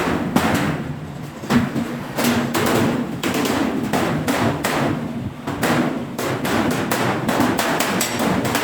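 Hand hammer striking steel sheet in a run of repeated blows, about two to three a second, coming a little faster near the end.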